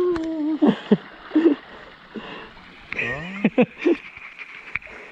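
A person's wordless exclamations as they get into cold water: a held, drawn-out cry, short gasps, then a rising cry a few seconds in.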